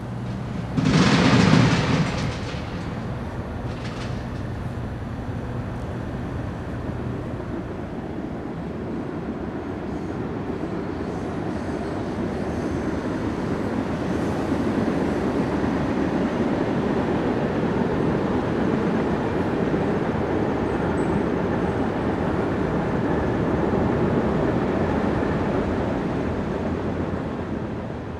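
Vehicles passing by: one loud, quick pass about a second in, then a rumble that builds slowly, holds, and fades out at the end.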